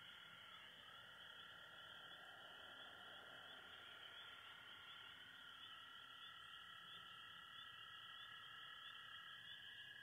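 Faint night chorus of calling animals: several steady high trills at different pitches running on together, one of them dropping out near the end.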